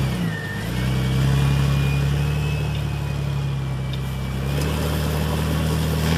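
Off-road 4x4's engine running steadily under load as it crawls up a trail climb, dipping briefly about half a second in, with a faint high whine over it.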